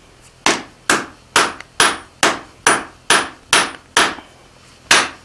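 Hand hammer striking a red-hot steel round bar on the anvil face, about two blows a second and each with a brief high ring, drawing the end out into a taper. The blows pause for about a second near the end, then resume.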